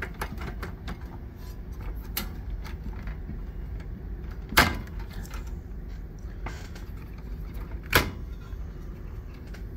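Handling noise from a servo drive being taken apart by hand: its metal chassis, circuit boards and ribbon cable give scattered light clicks and rattles, with two sharp knocks, one about halfway and one near the end.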